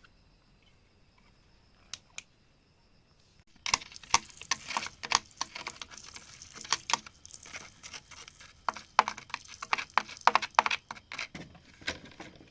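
Rock and loose grit being scraped and pried at by hand or a small tool: a quick, irregular run of scraping and clicking with small stones knocking, starting about four seconds in after a quiet opening.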